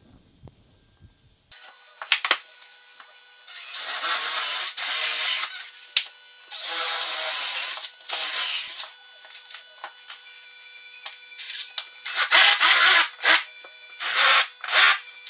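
Cordless drill/driver running in several bursts of a second or two against a wooden upright, each with a high motor whine. Shorter spurts follow near the end.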